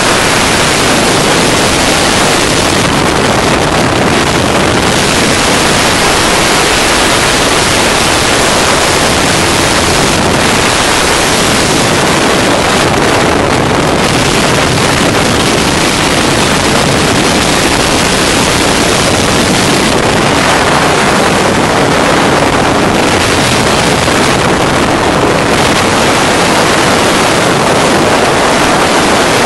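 Motorized hang glider in flight: a steady engine drone buried in a loud, unbroken rush of wind on the microphone.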